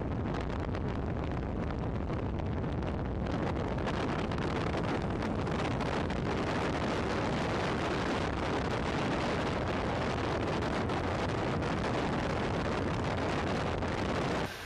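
A steady, loud rushing noise with a deep rumble, starting and stopping abruptly.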